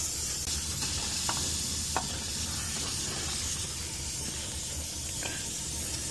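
Steady background hiss with a low hum under it, and a few faint light clicks or taps about a second, two seconds and five seconds in.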